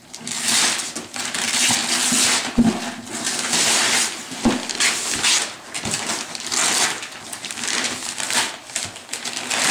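Wrapping paper being torn and ripped off a large cardboard gift box in a run of rasping rips, with two dull knocks against the box in the first half.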